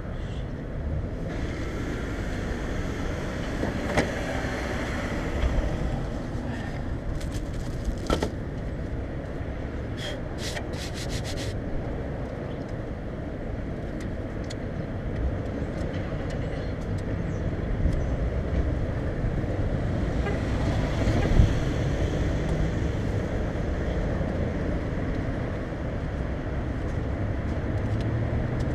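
Strong wind buffeting the microphone in a steady low rumble, with a few scattered clicks and knocks and a quick run of clicks about ten seconds in.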